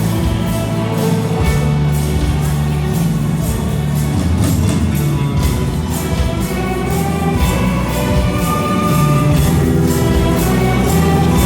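Very large youth orchestra playing live, sustained chords and melody lines over a steady, evenly repeating percussion beat.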